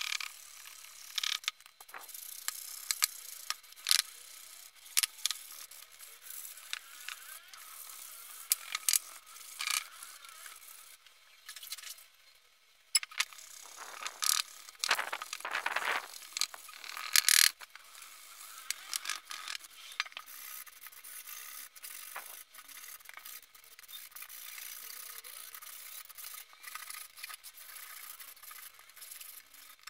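Sandpaper rubbed by hand over a copper box's metal surface: an uneven scratchy scrubbing with many sharp clicks and knocks of metal. The scrubbing grows louder for a few seconds past the middle.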